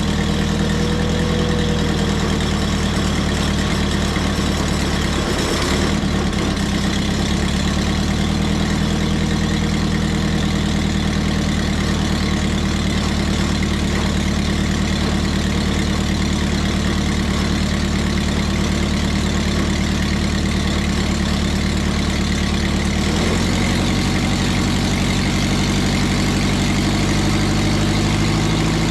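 Engine of a Mobile Dimension circular-blade sawmill running steadily just after starting, running smoothly. About three-quarters of the way through, its pitch steps up a little.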